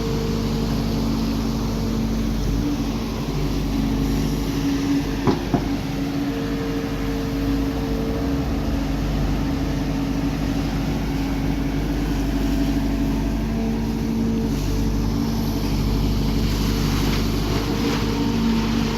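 Heavy machinery's diesel engine running steadily, its hum holding level with small shifts in pitch, and a short sharp knock about five seconds in.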